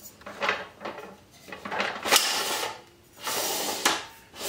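Metal extension arm of a DeWalt DWX726 miter saw stand scraping as it is pushed into the stand's beam in several short pushes. There is a sharp click about two seconds in and another near the end.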